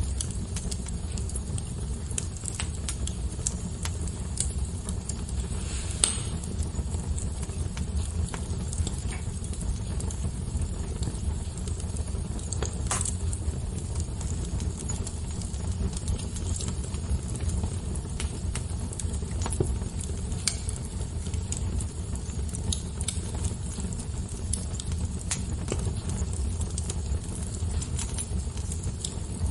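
Fire crackling: scattered sharp pops and snaps over a steady low rumble, with two louder pops about six and thirteen seconds in.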